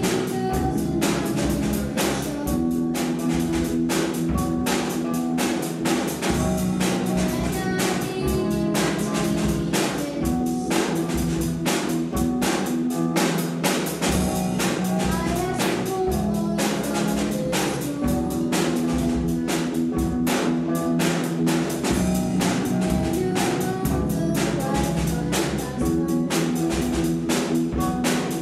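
Rock band playing an instrumental: electric guitars holding chords over bass guitar and a steady, driving drum-kit beat.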